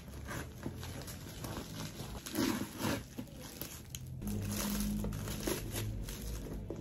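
Plastic bubble-wrap shipping pouch crinkling and rustling as it is cut open with scissors and pulled about. A low steady hum joins in a little past halfway.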